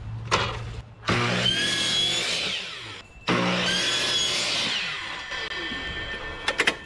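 DeWalt miter saw run twice for about two seconds each, its blade cutting shallow kerfs into the plywood jig board to mark the miter angles, each run ending in a falling whine as the blade spins down. A few sharp clicks near the end as the saw is swung on its miter base.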